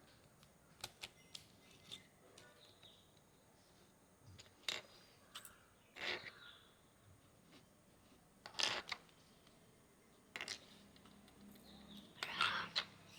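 Plastic Rubik's cube pieces clicking and knocking as they are handled and fitted back together: a handful of short, sharp clicks a second or more apart.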